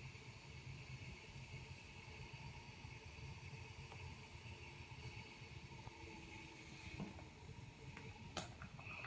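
Z1 travel CPAP machine running at a fixed pressure of 10 cm of water: its very small blower motor turning at high speed gives a faint, steady whir with a thin high whine. A few faint clicks come near the end.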